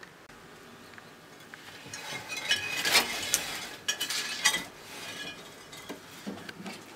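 A Dumeril's monitor taking food from metal feeding tongs: a few seconds of clicks, clinks and crunching, loudest about three seconds in, dying away after about five seconds.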